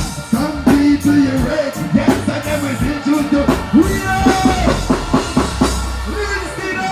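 Live reggae band playing through the stage sound system, with drums and a heavy bass line under a male voice singing into a microphone.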